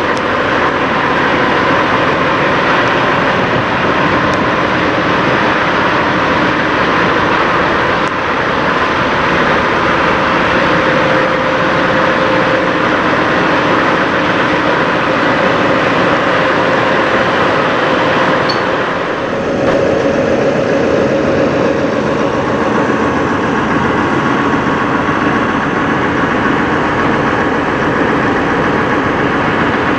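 Semi-truck diesel engine idling close by: a steady, loud drone with a faint constant whine in it. The sound changes briefly about two-thirds of the way through.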